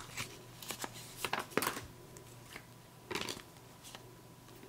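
Hands handling trading cards in rigid plastic toploaders and a paper wrapper: scattered light clicks and rustles of plastic and paper, busiest in the first two seconds and again about three seconds in.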